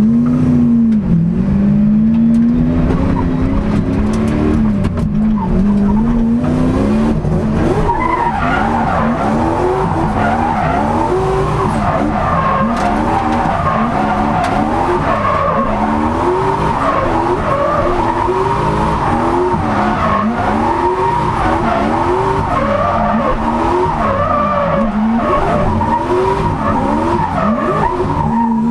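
Turbocharged Lexus 1UZ-FE V8 of a drift car heard from inside the cabin, its revs rising and falling slowly at first, then swinging up and down rapidly from about eight seconds in as the car slides through a drift run, with tyres skidding throughout.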